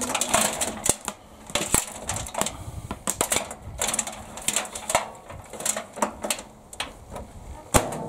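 Tangled strings of old Christmas lights being pushed into a microwave by a gloved hand: the plastic-coated wires rustle, and the small bulbs and plugs click and rattle against each other and the cavity in irregular bursts. A sharp click near the end as the microwave door is shut.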